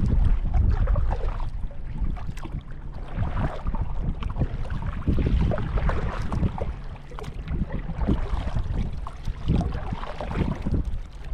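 Gusty wind buffeting the microphone in an irregular low rumble, with water slapping against a kayak's hull.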